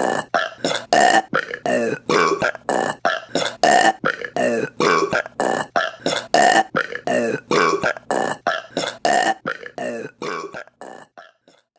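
A rapid, rhythmic string of women's burps, about two a second, fading out over the last second or so.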